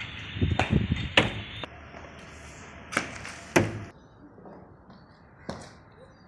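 A handful of sharp knocks from a cricket ball being bowled on a concrete rooftop pitch; the loudest come about one second and three and a half seconds in.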